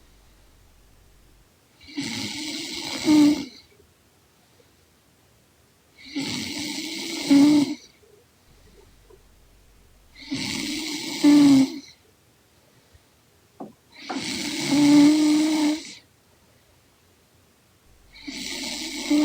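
A young woman snoring in her sleep: five drawn-out snores about four seconds apart. Each is a low nasal hum with breathy hiss, and each ends on a short, louder, slightly higher note.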